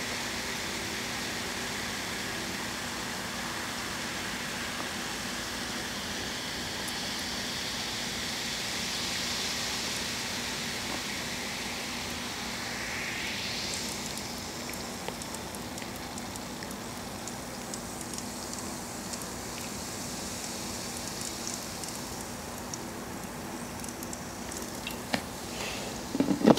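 Carbonated soda poured from an aluminium can into a glass of ice: a steady pouring hiss that rises in pitch as the glass fills, giving way about halfway through to the fizz and crackle of the bubbles. A knock near the end as the can is set down on the table.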